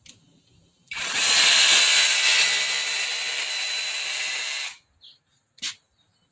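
Bauer brushless rotary hammer running for about four seconds, starting about a second in and cutting off abruptly, followed by a single sharp click.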